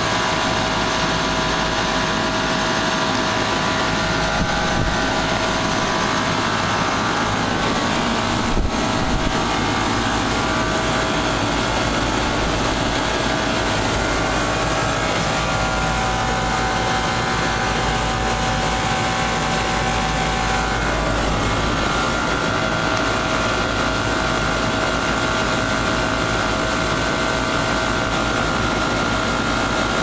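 Carrier Gemini split-system outdoor unit running, its two three-blade fans turning: a steady whir of moving air and motor hum with a few steady whining tones.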